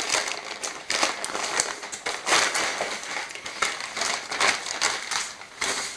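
Plastic packaging bag crinkling and crackling unevenly as it is handled and opened.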